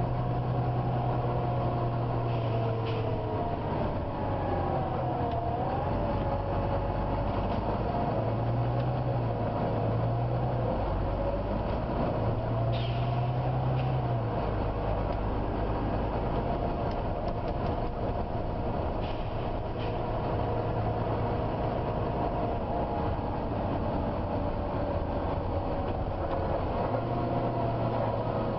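Volvo B9TL double-decker bus under way, heard from inside: the engine runs with a strong whine that wavers up and down in pitch, over a steady hiss. The uploader puts the whining down to the bus's cooling fan, a vacuum-cleaner-like sound.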